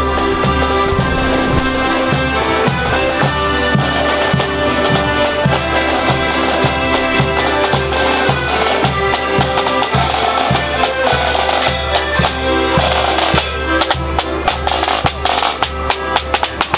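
Marching accordion band playing, with held accordion chords over regular snare and bass drum beats.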